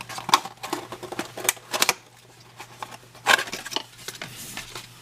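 A cardboard box for a speed cube being opened by hand: a string of irregular light clicks, taps and scrapes of packaging being handled.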